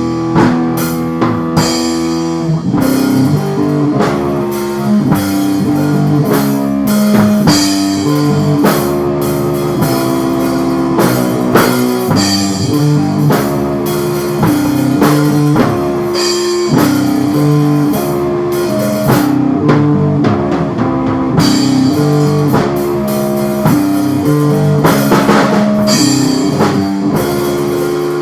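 Instrumental rock music: electric guitar and bass playing shifting sustained chords over a drum kit keeping a steady beat.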